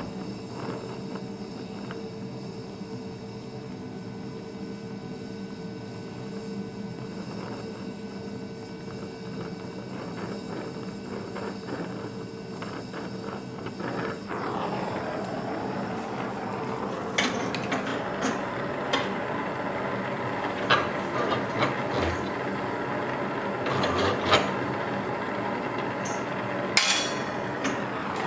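Oxy-acetylene torch flame hissing steadily while bronze filler rod is fed into the joint of a steel bracket on an exhaust pipe, the torch set to a harsh flame. In the second half a series of sharp taps sounds over the hiss.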